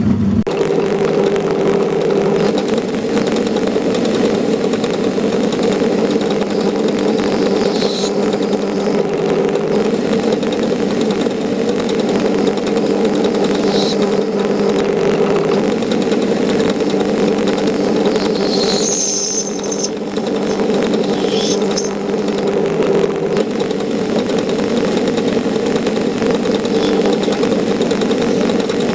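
Metal-turning lathe switched on and running steadily with a gear whine while turning a steel plate, with a few brief high-pitched squeaks partway through.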